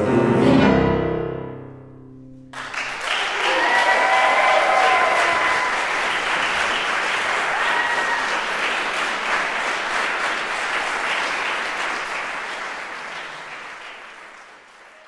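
The final chord of a violin, cello, bassoon and piano quartet ends and rings away over about two seconds. Then audience applause breaks out suddenly and slowly fades toward the end.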